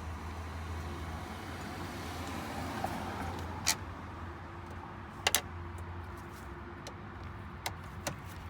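Sharp clicks and taps of a tool and plastic dash trim being worked loose, a handful of them with two in quick succession a little past halfway, over a steady low hum.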